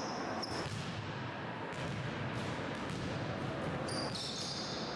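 Basketballs bouncing on a gym floor: several short thuds at irregular intervals over a steady background of hall noise.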